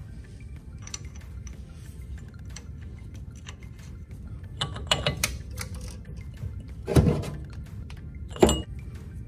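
Metal hub hardware clinking as it is fitted onto a Jeep front-axle spindle, then a steel spindle nut socket and extension clanking on, with two louder knocks near the end.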